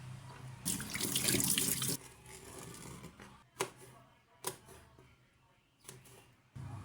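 Kitchen tap running for about a second, then shut off, followed by four light separate clicks or knocks.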